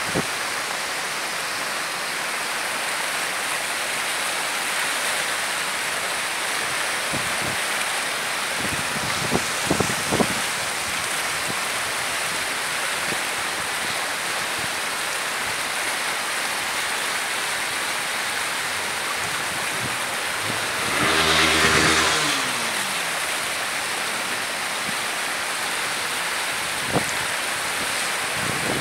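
Swollen, muddy floodwater rushing steadily down a concrete canal after heavy rain. About 21 seconds in, a vehicle passes close by, its engine note dropping in pitch as it goes past; a few brief knocks sound around 9 to 10 seconds in.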